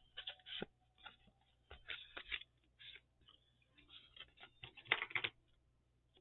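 Scissors snipping and trimming paper, with paper rustling as it is handled, in irregular bursts of quick crisp cuts that stop about five seconds in.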